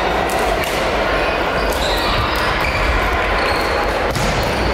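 Busy sports-hall din: many voices mixing and echoing, with scattered sharp clicks of badminton rackets hitting shuttlecocks on several courts.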